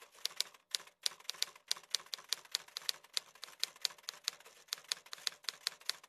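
Typing sound effect of typewriter key clicks: a steady run of sharp clicks, about five a second.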